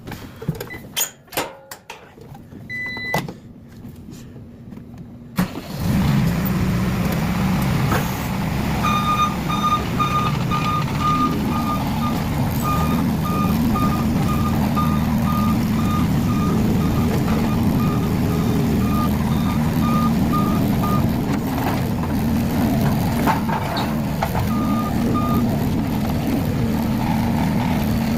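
A few knocks, then a skid steer's engine starts suddenly and runs steadily. Its backup alarm beeps in an even rhythm for about twelve seconds as the machine reverses, and again briefly near the end.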